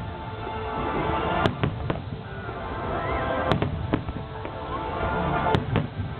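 Fireworks shells bursting, three sharp cracks about two seconds apart with weaker thuds between, over music with sustained tones.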